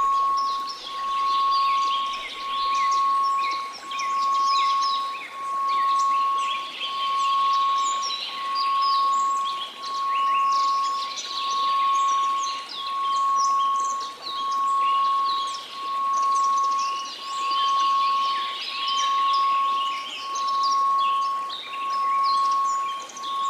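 A steady pure tone at 1098 Hz, swelling and fading a little less than once a second, over a bed of many chirping birds.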